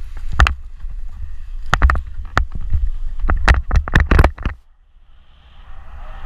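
Running footsteps on loose gravel, irregular and heavy, with wind rumbling on the microphone, during a paraglider's running launch. The steps stop suddenly about four and a half seconds in as the pilot lifts off, and a rushing wind hiss builds near the end.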